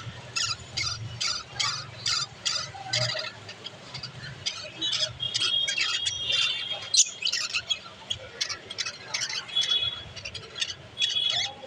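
Budgerigars chattering: a fast run of short chirps and squawks mixed with a few held whistles, and one sharp click about seven seconds in.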